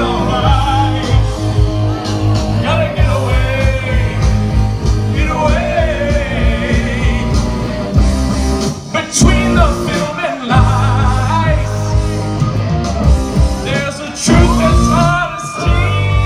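Live rock band playing: electric guitar, bass guitar and drums under a male singer. The playing drops out briefly a couple of times in the middle.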